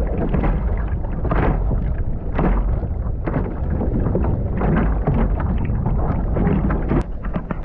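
Wind buffeting a kayak-mounted action camera's microphone as a plastic kayak is paddled through choppy surf, with repeated splashes of water against the hull and paddle.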